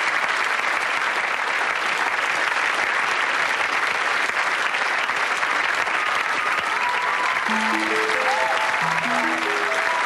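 Audience applauding steadily. About three-quarters of the way in, a plucked string instrument comes in over the applause with quick runs of notes climbing in pitch, twice.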